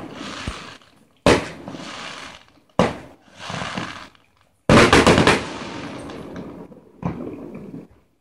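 Aerial firework shells bursting: a sharp bang every second and a half or two, each fading out over about a second, with a quick run of several bangs about halfway through.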